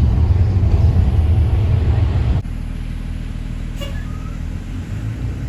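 Low, steady rumble of a road vehicle's engine and running noise. It drops suddenly about two and a half seconds in to a quieter, steady hum.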